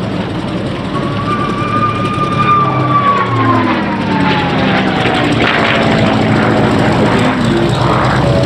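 P-51D Mustang's Packard Merlin V-12 engine and propeller flying past overhead. Its engine note falls steadily in pitch from about three seconds in as the aircraft goes by.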